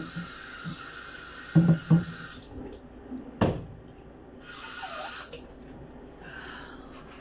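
Knocks and a sharp clack from a Magic Bullet blender's cup and blade base being twisted apart and handled, over a steady hiss that stops about two and a half seconds in and comes back briefly later.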